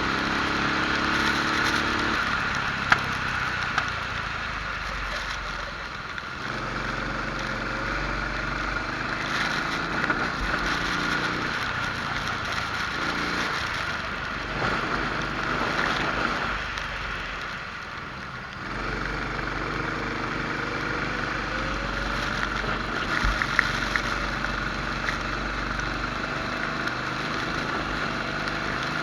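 Rental kart engine at racing speed, heard from onboard: it rises in pitch as it accelerates out of corners and drops twice as the driver lifts off for braking, over a steady hiss of wind on the microphone.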